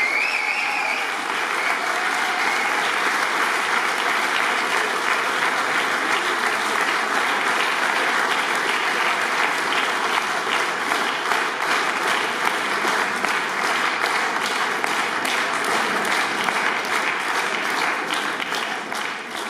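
An audience applauding. In the second half the clapping falls into a steady rhythm of about three claps a second, and it fades out near the end.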